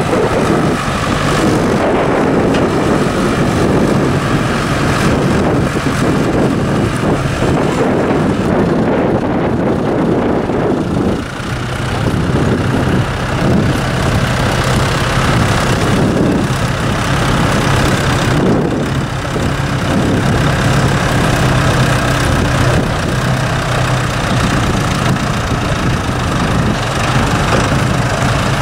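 Ford farm tractor's diesel engine running steadily while towing a loaded boat trailer; its low hum grows stronger about halfway through.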